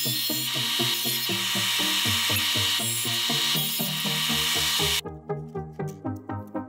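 Bench disc sander running and grinding a small metal part, an even hiss over steady background music. The grinding cuts off abruptly about five seconds in, leaving only the music.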